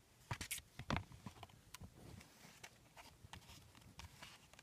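Quiet handling of a cardboard Blu-ray digipack as it is opened: a few soft clicks and rustles, the loudest within the first second, then smaller ticks.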